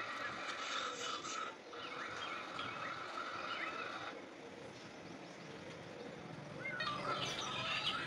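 Faint audio from a video playing on a phone's speaker: a steady high tone with scattered chirps, dropping away about four seconds in, then a busier run of chirps or voice-like sounds near the end.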